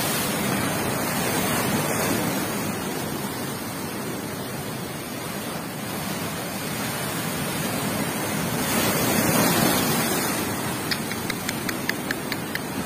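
Rough storm waves breaking and surging onto the shore: a continuous rushing roar that swells louder about nine seconds in. Near the end comes a quick run of small ticks.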